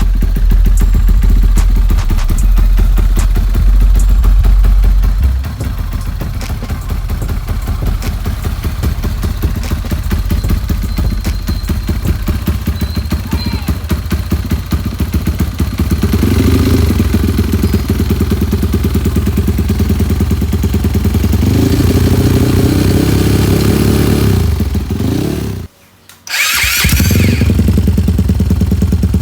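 Honda CRF150's single-cylinder four-stroke engine running, steady at first, then revved up and down repeatedly through the second half. Near the end the sound cuts out for about half a second, then the engine is heard running again.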